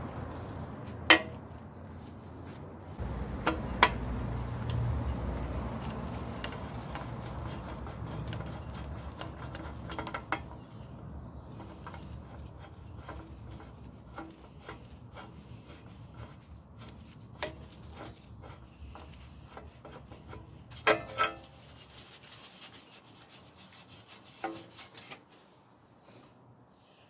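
Steady rubbing and scraping on a bicycle part, fading over time, broken by a few sharp knocks, the loudest about a second in.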